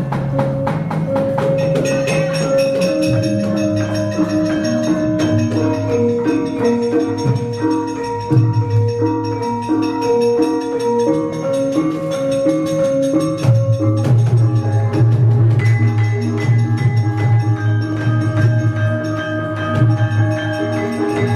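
Javanese gamelan ensemble playing: bronze metallophones ring out a steady, stepwise repeating melody. The sound grows fuller about two-thirds of the way in.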